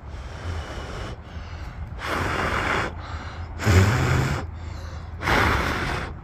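Three short puffs of breath blown onto the fur of two young rex rabbits, a bit over a second apart, each a soft hiss. The breath parts the fur so that the colour along the full length of the hair shaft can be seen.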